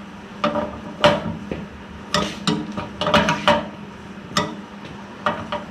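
Steel open-end wrench clinking and scraping on a tractor's fuel-line fittings as it is fitted and worked: an irregular string of short metallic clicks and knocks, the loudest about a second in.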